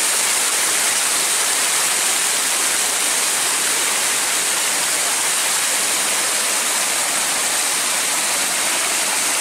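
Water pouring steadily over the lip of a low concrete river weir, a continuous rushing splash.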